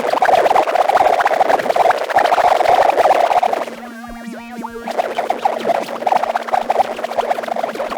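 Experimental synthesized sound effect made in Phase Plant, a dense, crackling, scratchy noise texture modulated by random LFOs through filters. About four seconds in it briefly thins into a sweeping, comb-filtered whoosh, and a steady low tone starts under it. Then the crackling texture builds back up.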